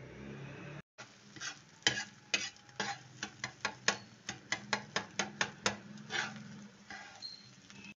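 A spatula scraping and tapping against a frying pan as beaten egg is scrambled: a quick run of about twenty strokes, over a low sizzle of the egg frying.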